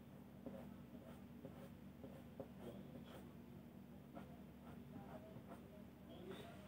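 Faint, short, irregular rubbing strokes on drawing paper as a tool works over an over-dark patch of pencil shading to lighten it.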